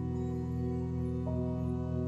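Slow, ambient new-age background music of long held tones, with a new note coming in about a second and a quarter in.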